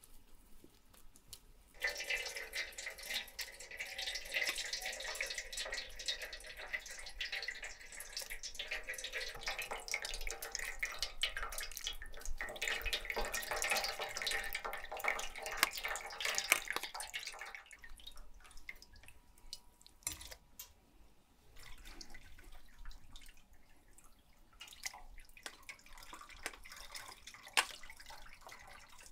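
Ladle pressing watermelon pulp through a metal strainer, juice squishing, dripping and splashing into a steel bowl below. The sound comes in suddenly about two seconds in, goes on wet and busy for around fifteen seconds, then turns softer, with scattered clicks and drips.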